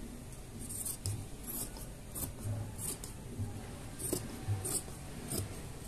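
Scissors snipping through fabric: a steady series of crisp cuts, one roughly every two-thirds of a second, as a pattern piece is cut out along its line.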